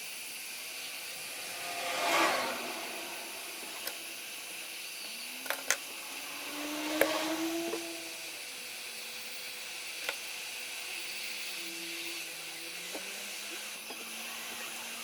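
No-clean flux sizzling in two short hissing swells as a soldering iron works the flux-flooded HDMI port on the board, over a steady background hiss, with a few light clicks of the tool.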